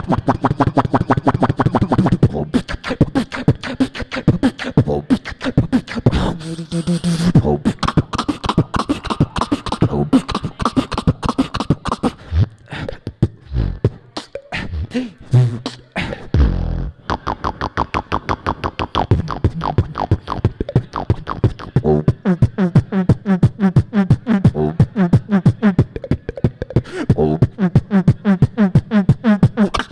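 Solo beatboxing into a handheld microphone over a PA: a fast, dense stream of percussive mouth sounds, broken by a few held low bass notes and a short sparser stretch about halfway through.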